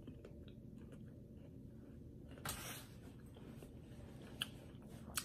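Faint chewing of a juicy cantaloupe slice: soft wet mouth sounds and small clicks, with one brief louder noise about two and a half seconds in.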